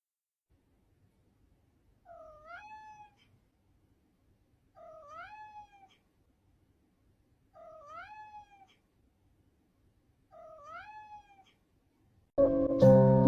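A domestic cat meowing four times, evenly spaced, each meow about a second long and rising then falling in pitch. Near the end a loud burst of music cuts in, louder than the meows.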